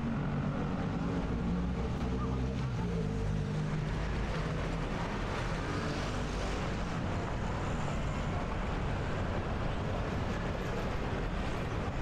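City street ambience: a steady low rumble of traffic, with a low pitched hum in the first few seconds that fades, and the murmur of passers-by's voices.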